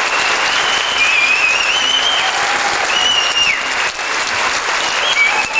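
Large audience applauding loudly and steadily after a speech, with several long, high, wavering whistles from the crowd.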